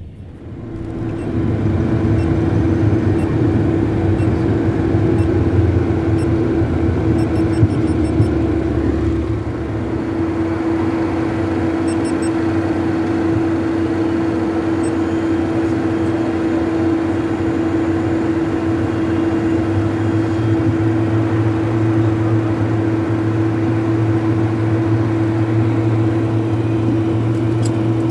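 Cockpit noise of a Cessna Citation business jet rolling out on the runway after landing: a steady hum over a low rumble. It swells sharply about a second in and then holds steady.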